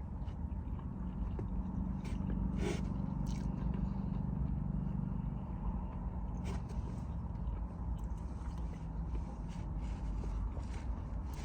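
Eating sounds: quiet chewing with a few sharp clicks and scrapes of a utensil in a takeout container, over a steady low hum.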